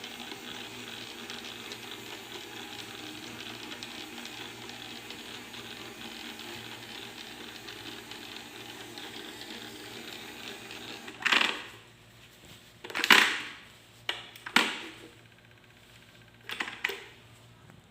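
Robot vacuum cleaner running with a steady whir for about eleven seconds, then it stops. Four loud, short knocks or clatters follow over the next six seconds.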